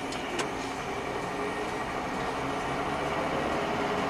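Steady road and engine noise of a car driving at highway speed, heard from inside the cabin, with a single sharp click about half a second in.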